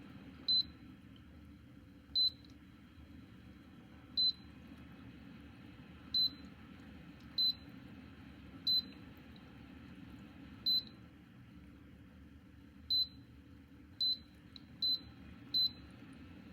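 Control-panel beeps from a Dreo ultrasonic humidifier: about eleven short, high electronic beeps at uneven intervals, as its touch buttons are pressed, over a steady low hum.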